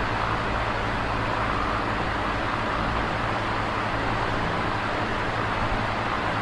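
Electric fan running steadily: an even whir of moving air with a low motor hum beneath it.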